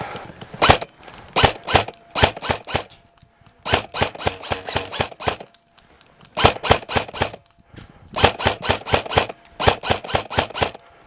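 Airsoft gun firing in short bursts, about eight bursts of a few rapid sharp clicks each, with brief pauses between them.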